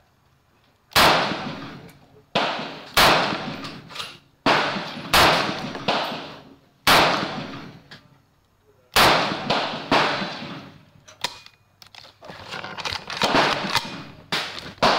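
Sig 556R rifle in 7.62x39 firing single semi-automatic shots at an uneven pace, from about half a second to two seconds apart, each sharp crack trailing off in echo. Near the end comes a quicker run of quieter reports.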